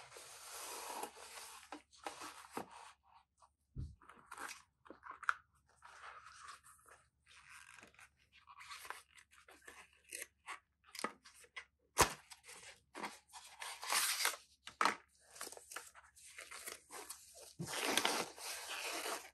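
Cardboard and paper being handled as a Samsung Galaxy A12's retail box is opened: irregular rustling and sliding of the box and its paper inserts, with a low knock about four seconds in and a sharp click about twelve seconds in. Near the end there is a longer, louder crinkle as a paper leaflet is unfolded.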